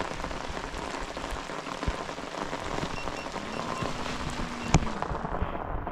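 Steady rain falling, a constant hiss dotted with many small drop hits. A single sharp knock stands out about three-quarters of the way through.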